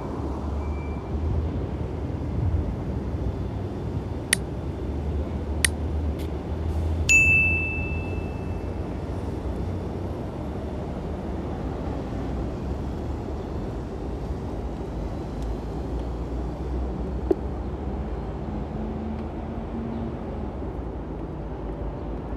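Steady city street traffic rumble, with a few sharp clicks and one short high ding about seven seconds in.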